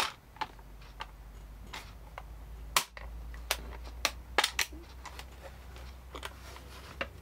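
Sharp plastic clicks and taps from a precision screwdriver set's plastic case as it is handled and its clear locking lid is unlatched and swung open, about a dozen clicks spread irregularly, the loudest about three seconds in.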